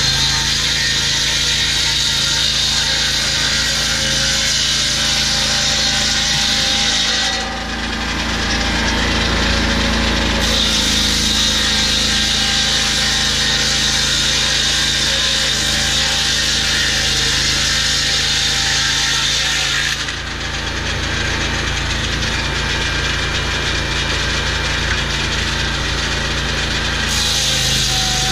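Lucas Mill portable swing-blade sawmill running, its petrol engine at steady high revs while the circular blade saws through a log. The high hiss of the blade in the wood drops back twice, about seven seconds in and again about twenty seconds in, then picks up again.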